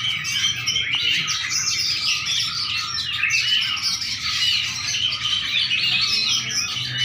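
A songbird, the one named in Indonesian as the pesisian, singing a fast, varied, unbroken twittering song of quick rising and falling notes.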